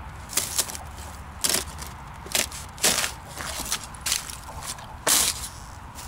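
Thin ice on a frozen puddle cracking and crunching under a shoe pressing on it: a series of sharp, irregular cracks, the loudest about five seconds in. The ice is thin, with water still under it.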